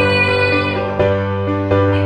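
Piano accompaniment playing soft sustained chords, with a girl's held sung note tailing off in the first second before the piano carries on alone.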